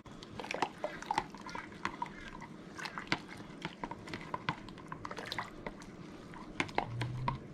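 A utensil stirring a thin liquid marinade of stock, lemon juice, oregano and garlic in a measuring jug: many light, irregular clinks against the jug with some sloshing of the liquid.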